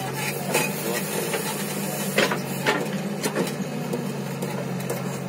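Diesel engine running steadily, with several sharp knocks and clatters over it.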